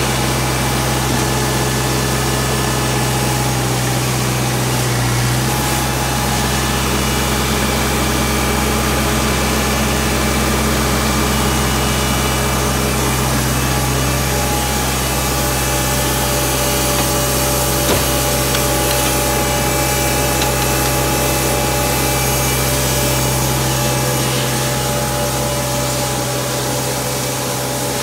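Diesel engine of a Gehl 1648 asphalt paver running steadily at a constant speed, with a whining machine hum over it. There is a single brief click about two-thirds of the way through.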